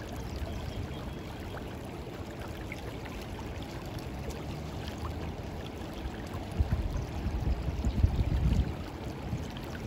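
River current flowing and splashing around a wading angler. About six and a half seconds in, a louder low buffeting on the microphone comes in and lasts to about nine seconds.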